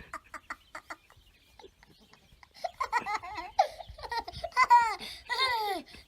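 A baby laughing in a string of high-pitched squeals that start about two and a half seconds in, after a run of short, quick pulses in the first second.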